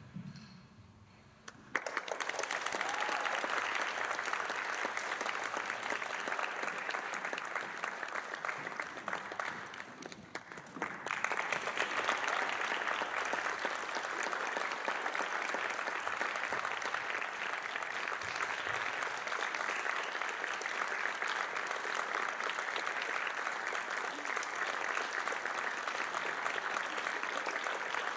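Audience applauding, starting sharply about two seconds in, dipping briefly around ten seconds, then swelling again and carrying on strongly.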